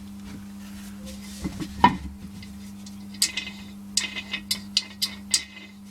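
Metal parts of an Audi B4 manual gearbox clinking and knocking as they are turned and handled: a couple of knocks, then a quick series of sharp metallic clinks in the second half, over a steady low hum.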